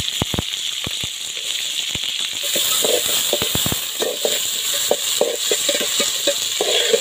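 Sliced onions and green chillies sizzling in hot oil in a metal pot, with sharp crackles. From about two and a half seconds in, a metal ladle stirs them, knocking and scraping against the pot.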